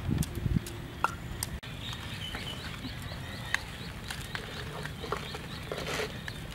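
A wooden pestle pounding in a stone mortar, a few dull thuds in the first half-second. After that, small birds chirp in the background, with a few light clicks as ingredients are handled.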